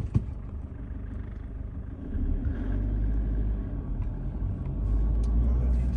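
Low rumble of a car heard from inside its cabin as it moves slowly in traffic, growing louder about two seconds in and again near the end. A short click just after the start.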